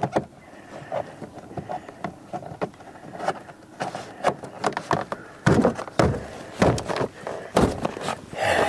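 Plastic door trim panel being worked into place on the door, with light scattered clicks and knocks. From about halfway through, several heavier knocks come as the panel is struck with the hand to snap its retainer clips home.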